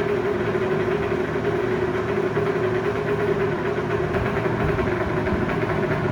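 Lakewood-made Penncrest 20-inch box fan running on high: a steady rush of air with a steady motor hum. The owner suspects the blade is slightly out of balance.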